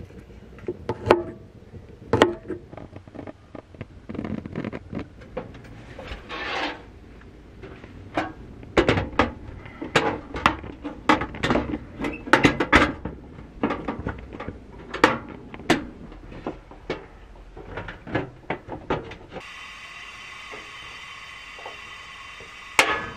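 Cooking-prep handling sounds: an irregular run of sharp clicks, taps and knocks from hands, food and kitchenware on a wooden cutting board and counter. Near the end a steady hum sets in, and the igniter of a two-burner camp stove clicks a few times.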